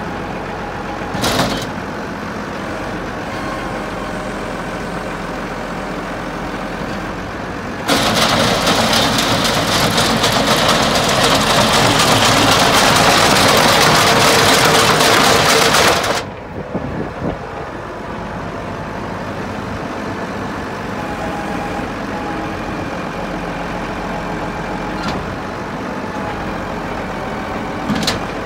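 Tractor engine running steadily, hitched to a mixer feeder wagon. For about eight seconds in the middle a much louder, harsh clattering rush takes over close to the wagon's discharge end, then cuts off sharply. There is a brief knock near the start and another near the end.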